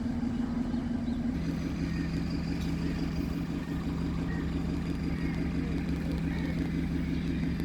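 A steady engine hum whose pitch steps down once about a second and a half in.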